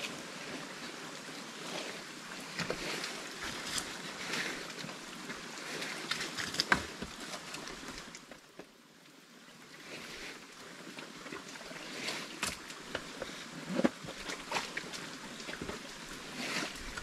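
Wet mud and muddy water being dug out and scooped by hand from around the rear of a motorcycle bogged in a mud hole, with irregular squelches, splashes and scrapes. The sounds pause briefly about halfway through.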